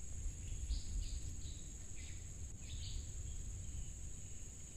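Steady high-pitched insect drone, with a few short bird chirps in the first three seconds over a low rumble.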